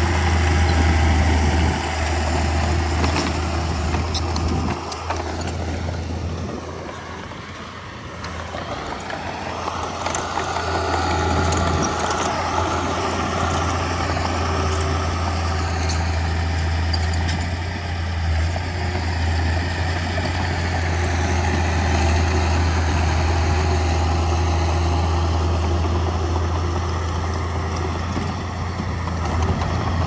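Heavy diesel earthmoving machinery running with a steady low drone. About six seconds in, the engine note drops and fades, then it climbs back up as the engine revs again.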